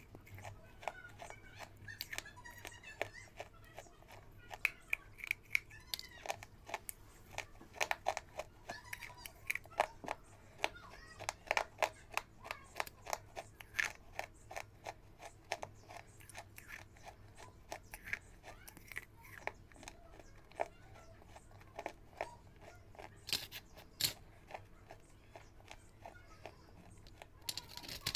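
Close-miked crunching and chewing of round crisp biscuits: many sharp crunches in irregular runs, thickest through the middle, with quieter chewing and mouth sounds between.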